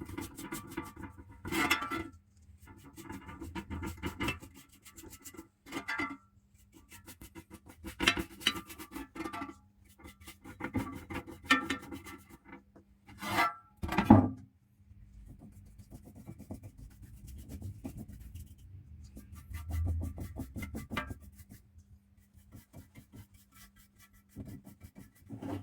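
Hand rubbing and scraping on fan parts, in irregular bursts of strokes a second or two long, with a sharp knock about fourteen seconds in and a faint steady hum underneath.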